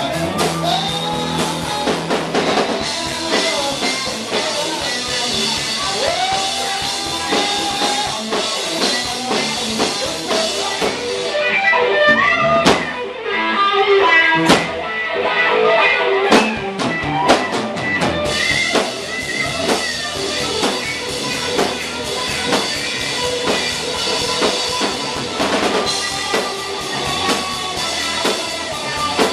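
Live rock band playing an instrumental passage on electric guitar and drum kit. About twelve seconds in the cymbals drop away for a few seconds, leaving the guitar and sharp drum hits, before the full band comes back in.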